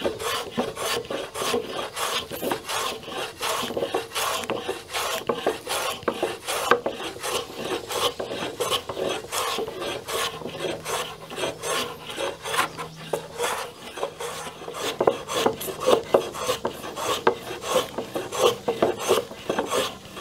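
Hand plane shaving the end grain and face of wooden rafters in many short, quick scraping strokes, trimming down a high spot at the rafter peak.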